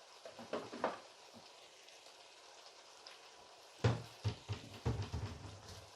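A pan of onion, garlic and ginger masala sizzling faintly. Utensils knock and scrape against the pan in two clattering bursts, about a second in and again near the end, as the cumin powder is worked in.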